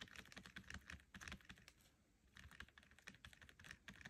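Faint, quick irregular ticking and scratching of a metal palette knife dabbing and spreading thick acrylic paint on canvas, with a short pause about halfway through.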